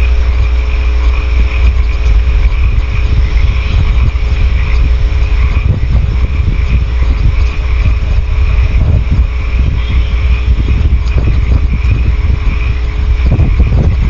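Steady low rumble on the nest-box microphone with a faint electrical hum, and a chorus of frogs calling steadily in the background.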